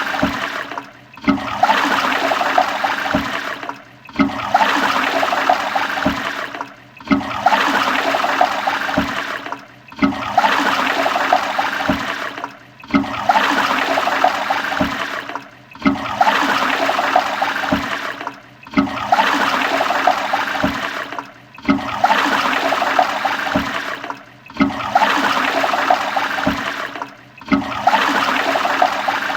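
Toilet flushing, the same short rush of water repeating about every three seconds, each one starting sharply and tailing off before the next.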